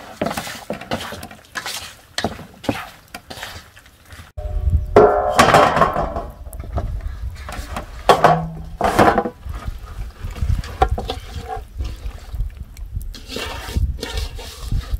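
Hands mixing wet chunks of sturgeon with tomatoes and herbs in an aluminium bowl, with many small clicks and knocks. Then the mixture is tipped and scraped out of the bowl into a metal baking pan. A low rumble sets in about four seconds in, and a short ringing tone comes soon after.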